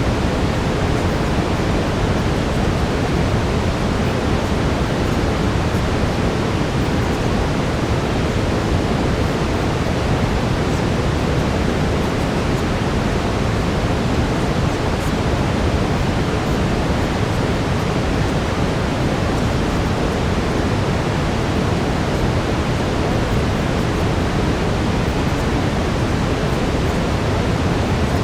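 Steady brown noise: an even, deep hiss with most of its energy low down, unchanging throughout.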